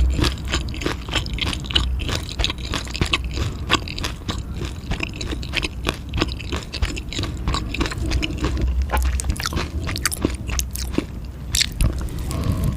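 Close-miked chewing and biting of food, a continuous run of wet crunching and crackling clicks.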